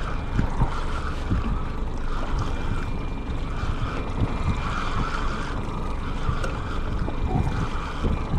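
Wind buffeting the microphone over water, with the whir of a spinning reel being cranked steadily to bring in a hooked fish.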